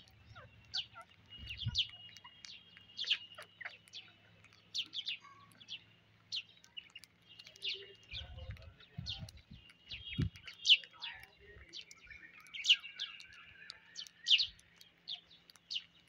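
Rose-ringed parakeets and house sparrows chirping as they feed: short, sharp chirps and calls come several times a second, mixed with a few longer whistled notes. A few soft low thumps come about halfway through.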